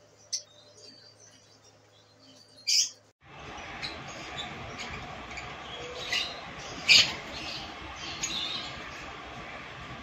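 Lovebirds calling: two short, high, sharp chirps over quiet, then, over a louder background hiss, a run of short high chirps, the loudest about seven seconds in.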